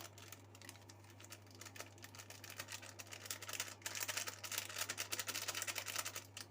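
Rapid, light clicking and tapping of a kitchen utensil against a bowl, growing denser and louder about halfway through, then stopping shortly before the end, over a faint steady hum.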